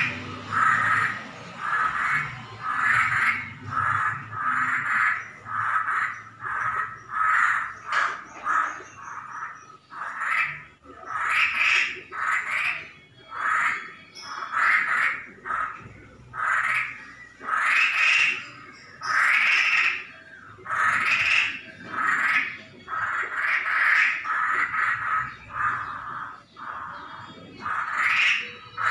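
Masked laughingthrush (Hongkong poksay) giving a long unbroken run of harsh, raspy calls, a little more than one a second. The owner calls it a strange sound ("suara aneh") and does not know its cause.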